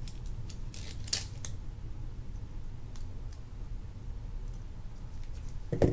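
Light clicks and scrapes of a small metal tool prying at the plastic and metal parts of a Penn Fierce III spinning reel, bunched about a second in, then a couple of faint ticks and a soft thump near the end.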